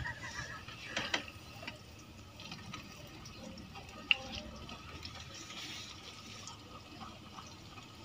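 Pakoras deep-frying in hot oil in a kadhai over a wood fire: a steady sizzle, with a few sharp clicks, the sharpest about four seconds in.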